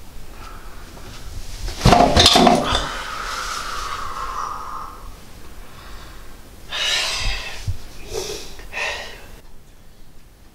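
A man crying: a loud sob about two seconds in that trails off into a long high whimper, then three heavy, gasping sobbing breaths near the end.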